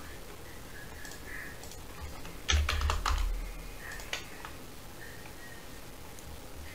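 Computer keyboard being typed on: a quick burst of keystrokes about two and a half seconds in, with a few scattered lighter clicks around it, as a new value is entered.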